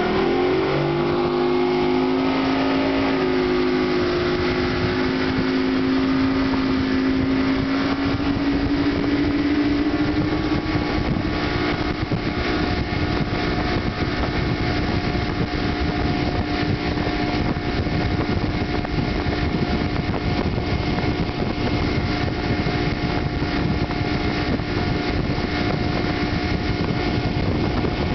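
Outboard motor of a boat towing a barefoot water skier, opening up to speed: its pitch jumps in the first second, climbs slowly for about ten seconds, then holds steady at speed. A constant rush of wind and water runs under it.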